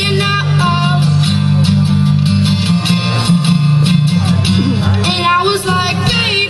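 A boy singing a country song while strumming an amplified acoustic guitar, the voice dropping out for a few seconds in the middle while the guitar carries on.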